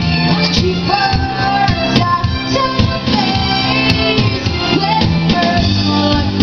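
A woman singing lead into a microphone over a live band, with an electric guitar among the instruments.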